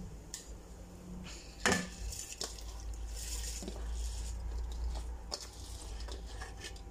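Uncooked long-grain rice poured and pushed by hand from a steel dish into a pot of boiling water, the grains hissing and pattering into the water. A single metal clink of dish on pot comes a little under two seconds in.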